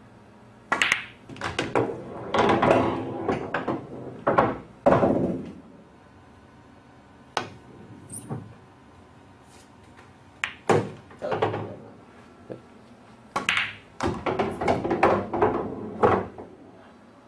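Pool balls struck with a cue and clacking together, knocking against the cushions and into the pockets, in three bursts of sharp clicks and knocks with a couple of single clicks between them.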